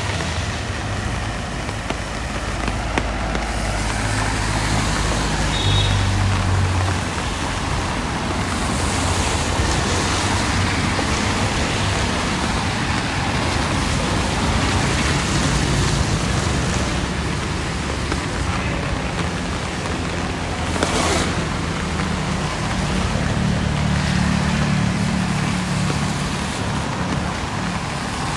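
Street traffic noise: vehicle engines running and passing under a steady hiss, with one short sharp click about three-quarters of the way through.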